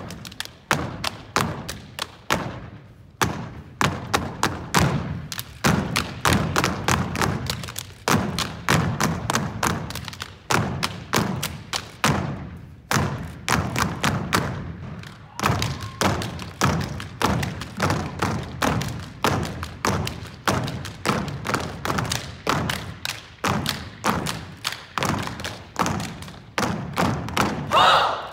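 An unarmed drill team clapping and stomping in unison on a hardwood gym floor in a quick steady rhythm of about two to three strikes a second, each strike dying away in the hall's echo.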